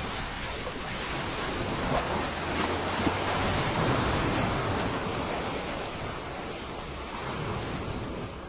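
Steady rushing noise that swells about two seconds in and eases off again after about five seconds.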